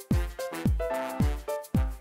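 Upbeat electronic dance music: a deep kick drum on every beat, about two a second, under a synth melody of short held notes.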